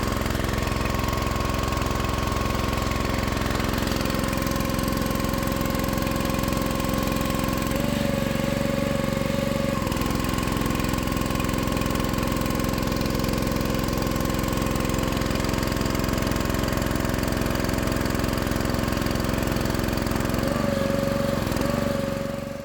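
Small engine running steadily, its pitch shifting briefly a few times as if under changing load, then fading out near the end.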